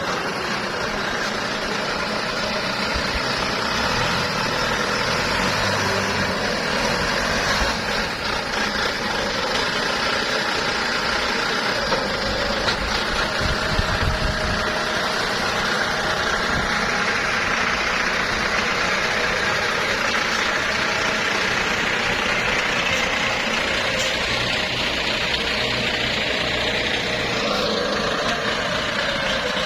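Diesel engine of a ZL930 small wheel loader running steadily, with a higher whine that shifts in pitch and rises near the end.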